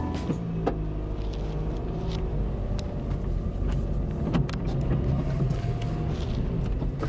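Car running, heard from inside the cabin: a steady low rumble of engine and road noise, with a few light clicks.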